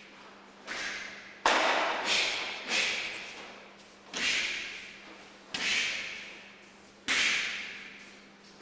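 Karate kata techniques snapping sharply about six times, roughly once every second or so, the loudest about a second and a half in: the cotton gi cracking with each strike, each hit ringing briefly in the hall.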